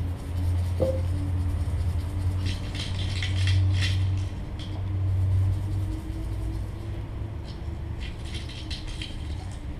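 Amplified plant materials heard through loudspeakers: two spells of dry rattling clicks, about three seconds in and again near the end, over a loud low rumble that eases after about six seconds, with a faint steady hum underneath.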